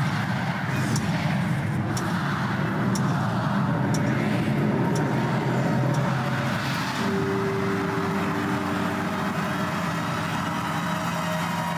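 Large crowd roaring through the final seconds of a New Year's countdown, with a sharp tick about once a second. About seven seconds in, after the count reaches zero, music starts over the crowd noise.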